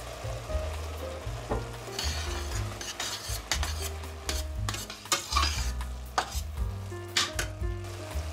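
Minced beef sizzling in a stainless-steel pot while a metal spoon stirs it, scraping and clinking irregularly against the pot, with hissy surges of sizzling about two and five seconds in.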